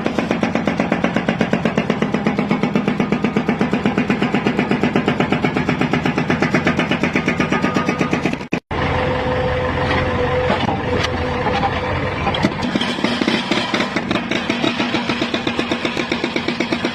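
A construction machine's diesel engine running with a steady, rapid pulse of about eight beats a second. Just past halfway the sound drops out for a moment, then the engine comes back less even and busier.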